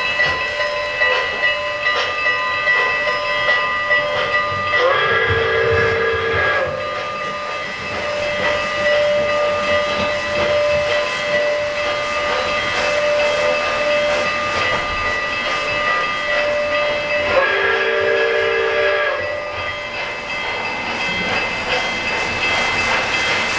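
O-gauge model trains running on three-rail track with a steady rumble and a constant whine. Twice, about five seconds in and again near seventeen seconds, a model steam locomotive's sound system blows a multi-tone steam whistle, each blast lasting just under two seconds.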